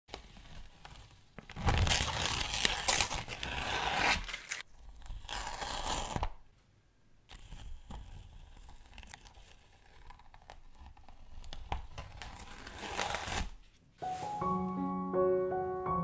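Paper being peeled away from a freshly painted acrylic sheet, with rough ripping noise in two long pulls, softer rustling, then another pull. Gentle piano music comes in near the end.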